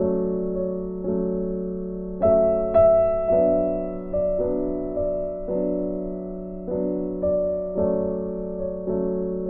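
Gentle solo piano background music, slow notes struck about once a second, each fading away.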